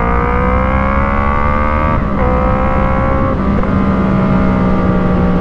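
Yamaha MT-03 parallel-twin engine running through an Arashi aftermarket exhaust with a DB killer fitted, loud and still clearly not the stock exhaust. Revs climb for about two seconds, drop sharply at a gear change, then hold fairly steady.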